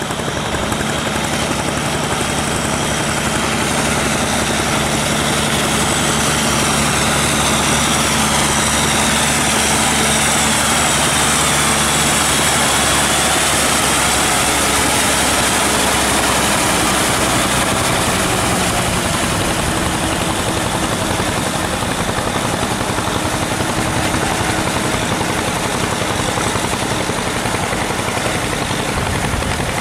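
Kubota M6040 tractor's diesel engine running steadily under load as it works a flooded rice paddy on steel cage wheels. A high whine in it dips and rises again around the middle, and its low note changes about two-thirds of the way through.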